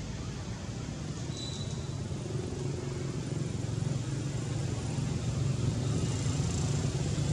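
A steady low engine hum that grows gradually louder, with one brief high tone about a second and a half in.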